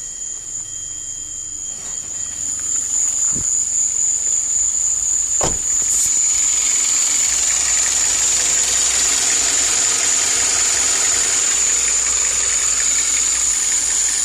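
Hyundai Sonata four-cylinder engine idling with a knock, which the owner takes for rod knock. A steady high whine sounds over it, the engine gets louder about two to three seconds in, and two sharp clicks come near the middle.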